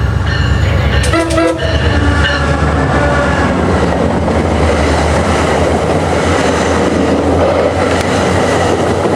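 MARC commuter train sounding its multi-note air horn, a chord of steady tones strongest in the first few seconds, then the train passing close at speed with its wheels clattering over the rail joints.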